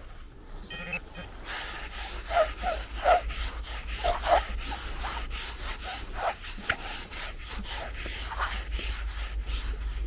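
Small hand shovel digging into beach sand, scraping and tossing it in repeated quick strokes.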